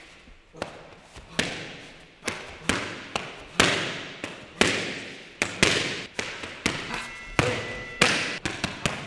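Pad work: a kickboxer's gloved strikes landing on the coach's hand pads, about a dozen sharp smacks at an uneven pace, some in quick pairs, each one echoing.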